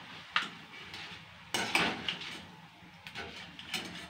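Steel wire-mesh skimmer clinking and scraping against an aluminium kadai as it turns and lifts frying murukulu out of the hot oil: several sharp metal knocks, the loudest cluster about one and a half seconds in.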